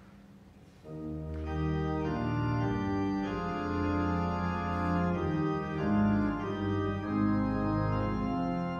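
An organ starts playing about a second in: sustained chords that change slowly.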